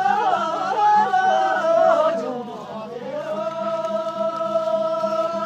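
A group of voices singing a Tibetan circle-dance song together, the melody moving for the first half and then settling on one long held note that breaks off near the end.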